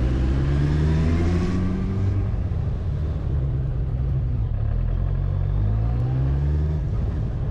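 Motorcycle engine running as the bike rides along, its note easing off over the first couple of seconds and rising again near the end as it picks up speed.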